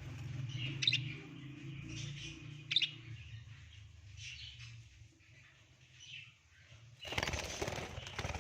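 Budgerigars chirping in short, scattered calls over a low steady hum that fades out about halfway through. A loud burst of noise comes near the end.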